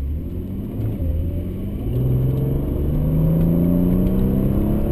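Mercedes C32 AMG's supercharged 3.2-litre V6 heard from inside the cabin, accelerating: the engine note climbs steadily in pitch and grows louder from about two seconds in.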